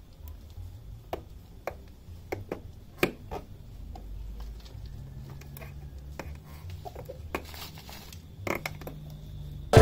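A microfibre cloth and hands rubbing and wiping a motorcycle's plastic turn-signal stalk to dry it, giving scattered soft clicks and scuffs, over a low steady background hum.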